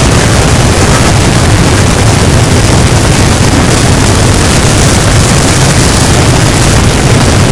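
Harsh noise wall: a loud, dense, unchanging wall of distorted noise that fills every pitch, with a heavy low rumble beneath a hissing top.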